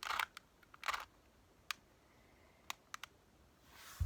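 Plastic Rubik's Cube layers being twisted by hand: two short scraping, clicking turns in the first second, then a handful of single sharp clicks with pauses between.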